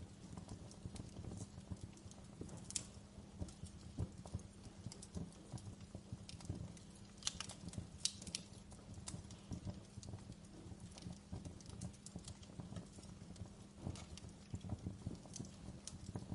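Wood fire burning in a fireplace, with a steady low rumble of flame and irregular crackles and sharp pops, a few louder snaps among them.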